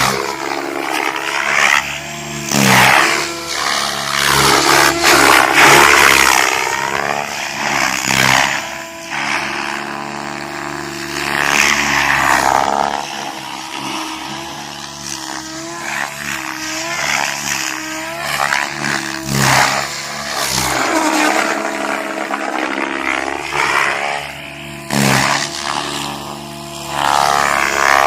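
Goblin 700 electric RC helicopter flying 3D aerobatics: rotor and motor whine, pitch sweeping up and down again and again as it passes and loads the blades. Several short bursts of noise run through it, like wind hitting the microphone.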